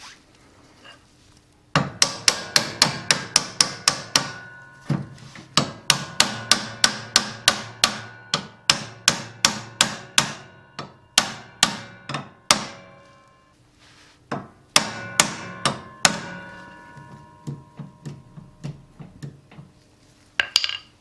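Hammer striking the steel steering-arm clamp to drive it down onto the top of a Countax C300 lawn tractor's stub axle, metal on metal with a ringing note. The blows come in quick runs of several a second, stop briefly about two-thirds of the way through, then resume and fade into lighter taps, with one more strike near the end.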